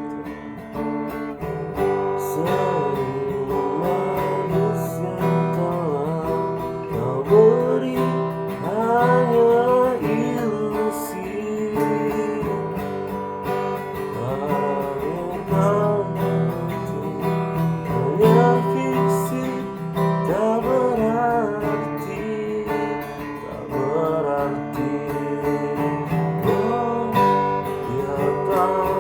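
Acoustic guitar strummed steadily under a sliding, wavering melody line, an instrumental passage of a song.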